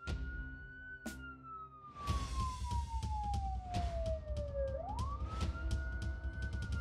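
Electronic siren of a toy fire engine wailing: a quick rise in pitch, a slow fall over about four seconds, then a quick rise again about five seconds in. Clicks and a low rumble run beneath it from about two seconds in.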